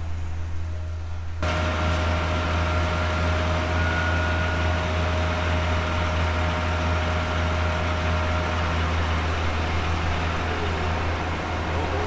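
Heavy diesel engine of a Mack concrete mixer truck idling with a steady low hum. It comes in louder and fuller about a second and a half in.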